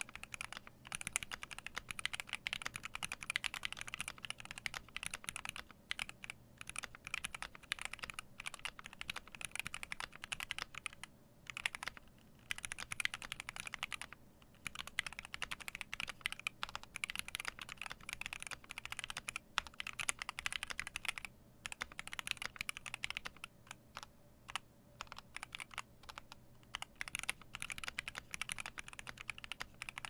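Fast continuous typing on a Tofu 60 mechanical keyboard built with NovelKeys Silk Red linear switches on a brass plate, HK Gaming PBT keycaps and foam under the PCB: a dense stream of key strokes with a few short pauses.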